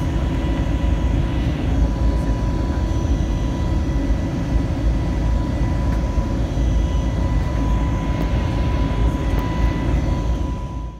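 Steady cabin noise of an Airbus A320neo climbing out after takeoff: a low rumble of engines and rushing air with a thin, steady high whine over it.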